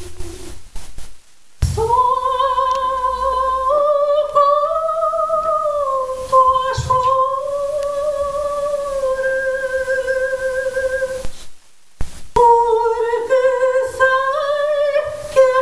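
A woman singing long held notes that move slowly up and down in pitch, broken twice by short gaps.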